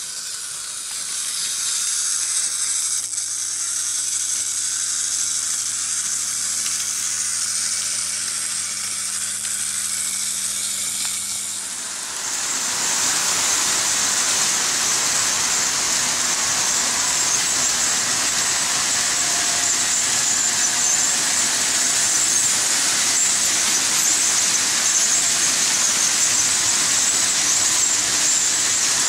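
Märklin H0 model trains running on metal M-track: a steady whirring, rattling rolling noise of wheels and motors, with a low hum underneath at first. It gets louder and fuller about twelve seconds in.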